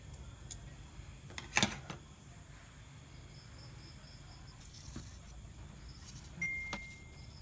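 A kitchen knife knocking and tapping on a plastic cutting board while raw beef is sliced: a few sharp knocks, the loudest about one and a half seconds in and another cluster near the end. Crickets chirr steadily underneath, and a short steady high tone sounds near the end.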